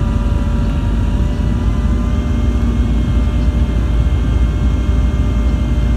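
Airliner engine noise heard from inside the passenger cabin: a steady loud rumble with a steady high whine.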